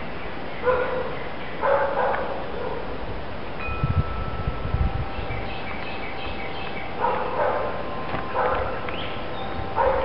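Wind chimes ringing, several long tones sounding and fading at different pitches. A dog barks in short bursts, twice in the first two seconds and three times in the last three, with low rumbles a few seconds in.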